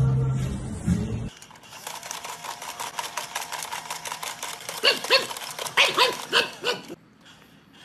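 Pug giving a quick series of six or seven short, high, arched whines over a run of fast clicking. This is preceded by a low steady sound that cuts off abruptly about a second in.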